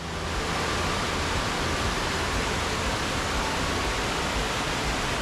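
Black Brook in winter flood, a swollen brook rushing steadily over a stone weir in its walled channel.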